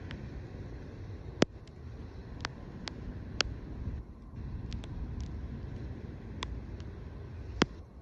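Mute swans dabbling for seed at the water's surface: irregular sharp clicks, plops and drips as bills snap and heads dip and lift, the loudest about a second and a half in, over a steady low rumble.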